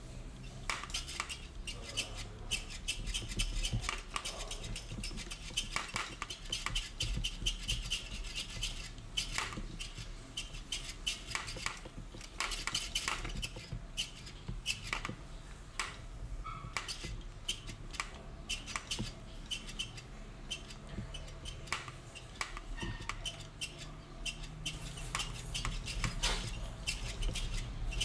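Rapid, irregular clicking and clattering of small hard objects, over a low steady hum.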